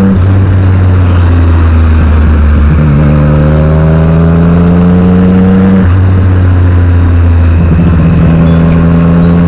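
Motorcycle engine pulling under way with steady wind rush. The pitch climbs slowly and drops back once about six seconds in, as it is shifted up a gear, then climbs again.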